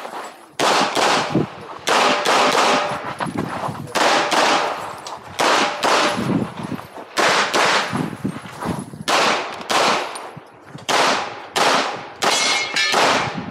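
Rapid pistol fire from a CZ Shadow 2 with a red-dot optic, shots mostly in quick pairs, each with a short echoing tail, and brief pauses between strings as the shooter moves from target to target.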